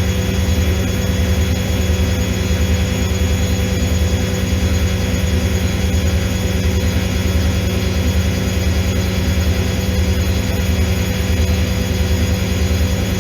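Automatic washing machine running: a steady low motor hum with a fast, even throb and a few steady whining tones above it.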